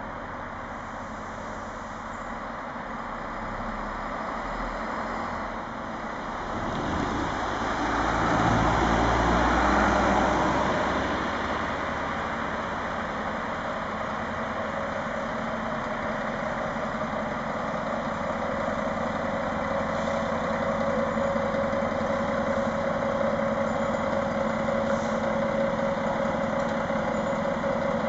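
Diesel engines of Stadler Regio-Shuttle RS1 railcars running at low revs as the train approaches the level crossing slowly, the steady drone growing louder with a low hum and a higher whine over the last third. A louder rushing sound swells and fades about seven to ten seconds in.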